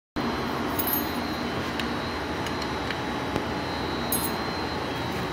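A machine running steadily: an even noise with a thin, steady high whine over it and a few light clicks.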